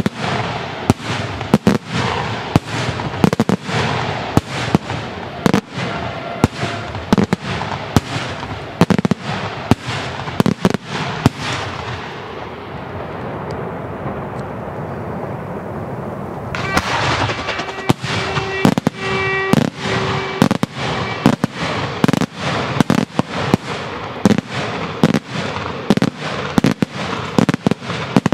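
Daytime aerial fireworks: rapid volleys of sharp bangs from shells bursting into dark smoke overhead, several a second, with an echoing rumble between them. About twelve seconds in the bangs stop for a few seconds, leaving a fading rumble, then start again, with a few steady high tones under them for several seconds.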